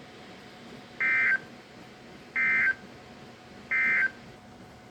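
Emergency Alert System end-of-message signal on a NOAA Weather Radio broadcast: three short bursts of buzzy digital data tones, evenly spaced about a second and a third apart, over faint radio hiss. They mark the end of the severe thunderstorm warning.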